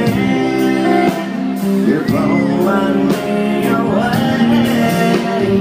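Live country band playing, with electric guitars and regular drum and cymbal hits, heard from the crowd.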